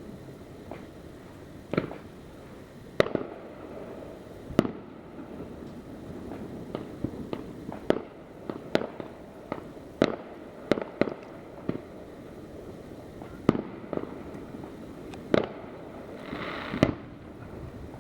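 Distant backyard fireworks going off all around: a dozen or so separate bangs at irregular intervals, some with a short echo, and a brief crackle near the end.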